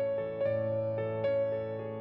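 Slow, gentle new-age background music: a few soft keyboard notes struck over sustained chords.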